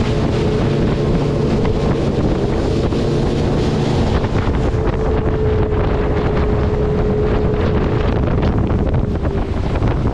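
Motorboat under way: its engine runs steadily and loudly, with wind buffeting the microphone and water rushing past the hull. A steady higher engine tone stands out for a few seconds in the middle.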